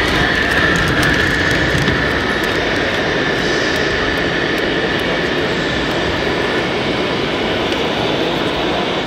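Scale RC trucks driving in convoy, their engine-sound modules running steadily over the exhibition hall's constant background roar; a high whine fades away about two-thirds of the way through.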